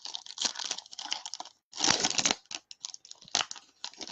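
Foil wrapper of a card pack being torn open and crinkled by hand, a run of papery rustles with the longest, loudest rip about two seconds in.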